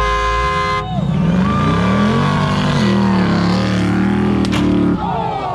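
A brief steady horn note, then a wrecker truck's engine revving up and labouring under load as it drags a pickup through sand on a tow strap. The engine drops off about five seconds in.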